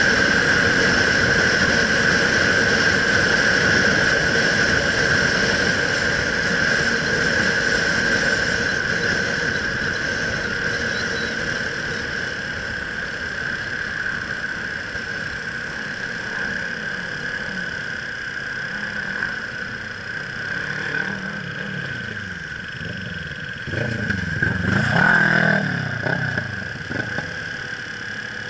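Motorcycle riding along the road, with wind rush and a steady high whine; the noise eases off over the first twenty seconds as the bike slows in traffic. Near the end an engine revs up and back down.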